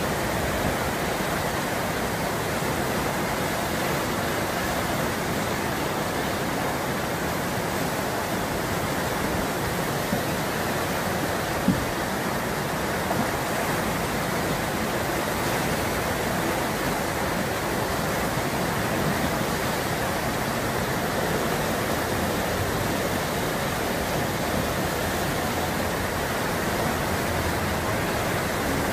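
Steady rushing whitewater of the Eisbach's standing river wave, as fast river water pours over the step and breaks. A single short knock sounds once, a little before halfway.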